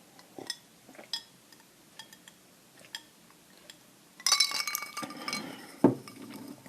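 Utensil clinking against a dish: a few light ticks, then a loud ringing clink with scraping about four seconds in, followed by a single dull knock.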